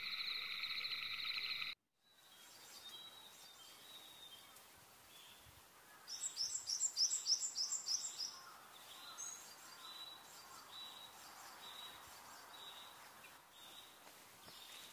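A steady high-pitched trilling chorus cuts off abruptly just under two seconds in. Then, over faint outdoor hush, comes a quick run of about eight high chirps, followed by soft single chirps repeating about once a second.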